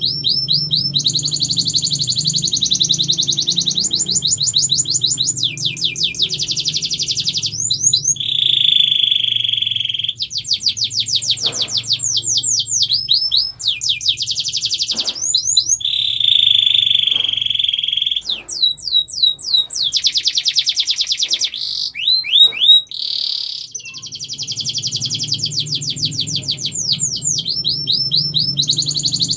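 Domestic canary singing: long runs of fast, rapidly repeated trill phrases, broken twice by a steady held note. A low hum sits under much of the song.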